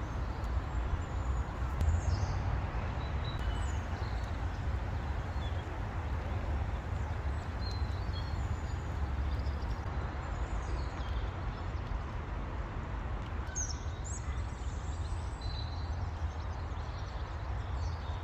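Outdoor woodland ambience: a steady low rumble with scattered short bird chirps throughout.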